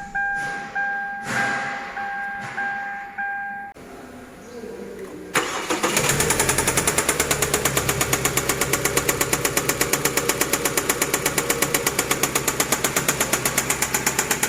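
A car's warning chime beeps repeatedly for the first few seconds. About five seconds in, the Kia engine is cranked and catches, then idles with an even, rapid ticking or knocking, about five beats a second.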